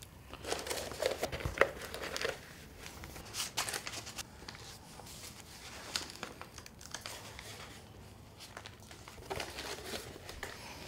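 Paper envelope and banknotes rustling and crinkling in hands in several short bursts, with a sharp paper snap about a second and a half in.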